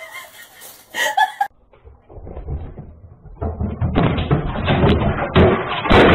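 A cat knocking a flat-screen television off its stand: loud clatter and repeated thumps starting about three and a half seconds in.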